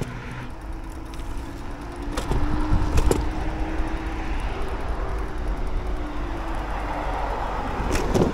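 Teverun Blade GT II electric scooter being ridden along a path: a steady rush of wind on the microphone and tyre rumble, with a faint steady hum for most of the time and a few sharp knocks.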